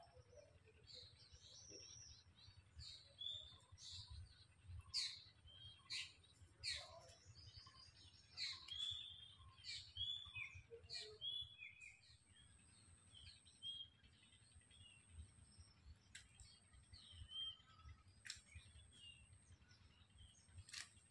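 Several small birds chirping and calling: quick high chirps and short falling whistles, coming thick in the first half and sparser toward the end.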